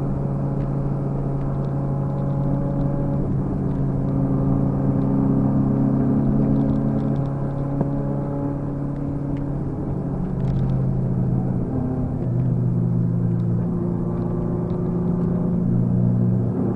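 Car engine and road noise heard from inside the cabin while driving, the engine note holding steady and shifting pitch a few times.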